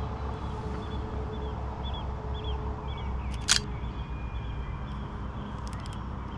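A Fujifilm X-H2 camera shutter fires once with a sharp click about halfway through, then a quick run of several fainter clicks comes near the end. Behind it a bird chirps repeatedly over a low steady background rumble.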